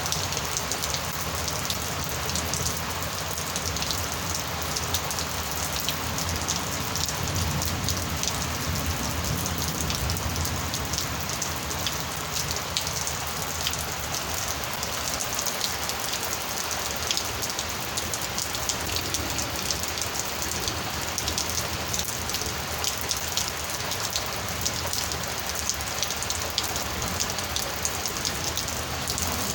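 Heavy thunderstorm rain falling steadily, a dense even hiss with many distinct drop impacts ticking through it.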